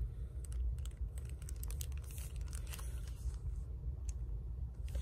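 Light, scattered clicks and crinkles of a clear plastic retail bag being handled and turned in the hands, over a steady low hum.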